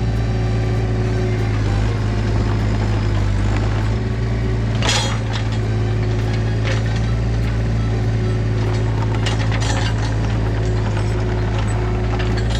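Engine of a small earth-moving machine running steadily under work. A sharp clank comes about five seconds in, with lighter clicks around seven and ten seconds.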